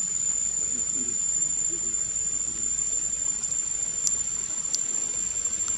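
Steady high-pitched drone of insects, one unbroken tone that holds level throughout, with two light ticks about four and five seconds in.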